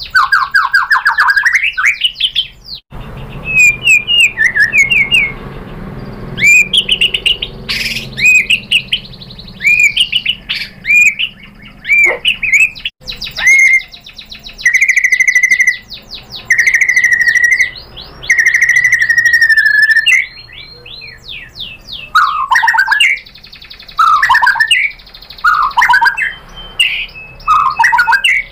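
White-rumped shama singing a loud, varied song of whistles and fast trills, with a run of long steady whistled notes midway and lower down-slurred notes near the end.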